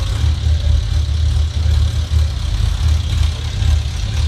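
Honda CB1000's inline-four engine idling, with a rattle from the engine. This is the knock it makes when cold, which dies away once the engine has warmed up.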